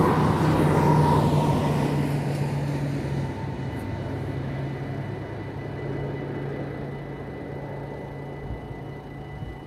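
A locomotive passing over a level crossing, its engine humming over the rumble of the wheels. It is loudest at the start and fades as it moves away, and the low hum stops near the end.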